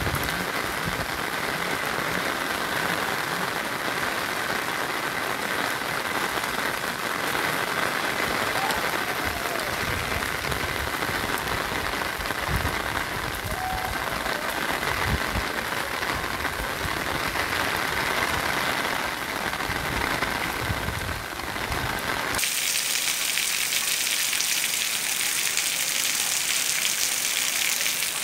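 Rain falling on a paved street, a steady hiss of rain. About twenty-two seconds in, the sound cuts abruptly to a brighter, hissier rain with less low rumble.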